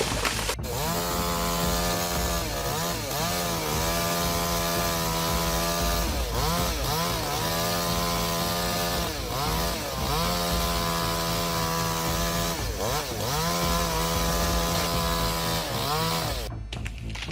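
Chainsaw running at high revs, its pitch dipping briefly and climbing back every two to three seconds. The sound breaks off abruptly about sixteen seconds in.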